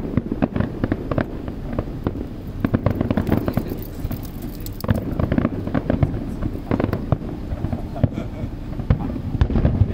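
Fireworks bursting in rapid succession: a dense run of bangs and crackles over a steady low rumble.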